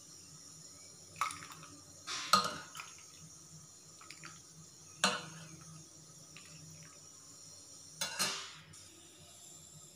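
Stainless steel ladle clinking against a steel pot and serving bowl as thin lentil soup is ladled out and poured, about four sharp clinks spaced a few seconds apart, with the slosh of the liquid.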